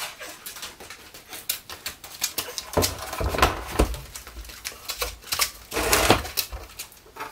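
Plywood cabinet being lifted onto a wooden wall cleat and shifted against the wall: a run of knocks and scrapes, with heavier thumps about three to four seconds in and again around six seconds in.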